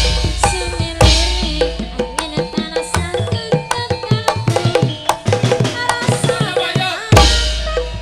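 Javanese gamelan (karawitan) playing, with kendang hand-drum strokes and metal-keyed instruments under a woman singing. A deep gong stroke rings out about a second in and again near the end.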